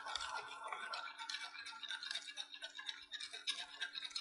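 A metal spoon stirring sugar and salt into coconut milk in a bowl, a steady run of light scraping and clinking against the bowl as the sugar is stirred to dissolve.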